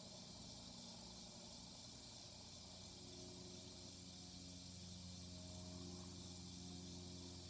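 Faint outdoor ambience: a steady high-pitched insect chorus, likely crickets, with a faint low hum beneath.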